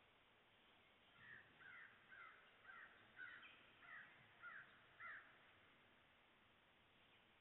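A bird calling in the distance: a faint series of about eight short calls, roughly two a second, that stops after about five seconds.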